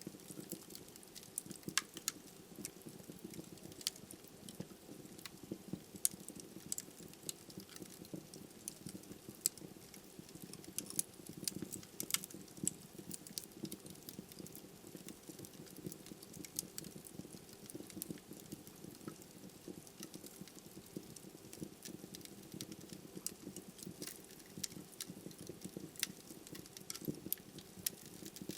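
Wood fire burning in a fireplace: a soft steady rush of flame with irregular sharp crackles and pops from the logs.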